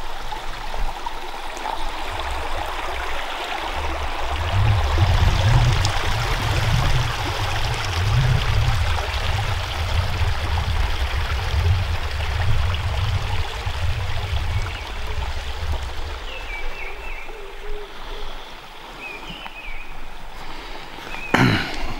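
A small rocky stream rushing and babbling over stones, a steady even rush. A low rumble on the microphone comes and goes through the middle, and a knock sounds near the end.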